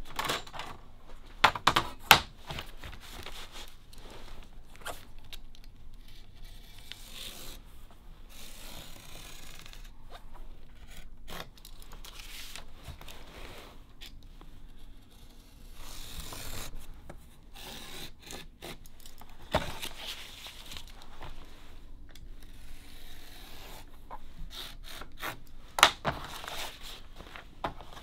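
Newspaper being torn into long strips along a steel straightedge, with the paper and ruler rubbing and scraping on a wooden bench and the paper rustling as it is handled and folded. A few sharp knocks stand out, two about a second and a half to two seconds in, one near the end.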